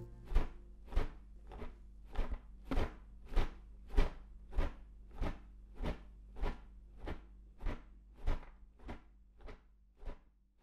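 Marching footsteps crunching on gravel in a steady tread of a little under two steps a second, growing quieter toward the end. They are the footstep rhythm of the song's instrumental cover, left on their own as the instruments stop.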